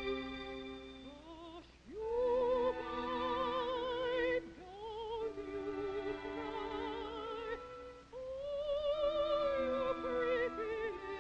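A high, classically trained voice singing a slow, quiet song with a wide vibrato in several short phrases, over soft sustained accompanying chords.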